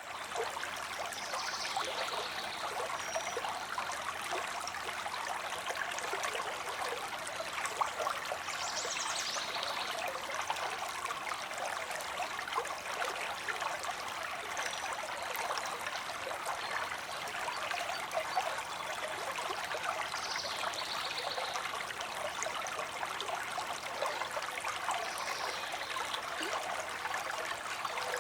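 A mountain stream running steadily over rocks, with a bird chirping briefly now and then, about five or six times.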